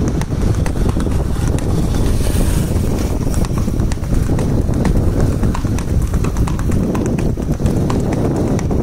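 Sindhi horse's hooves clip-clopping in a quick, even rhythm on a paved road, over a steady low rumble.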